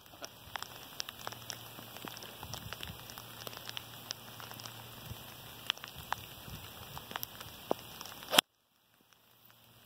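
Steady rain pattering, with many small ticks of drops striking close by. About eight and a half seconds in comes one sharp, loud crack of an iron striking a golf ball, after which the sound cuts out almost completely for a moment.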